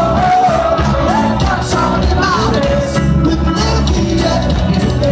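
Rock band playing live: electric guitar and a full band with a man singing over it, at a steady loud level with a regular beat.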